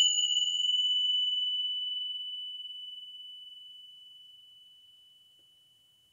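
Tingsha cymbals ringing out after a single strike: one high, clear tone that slowly fades away and is gone about five seconds in, its higher overtones dying within the first two seconds.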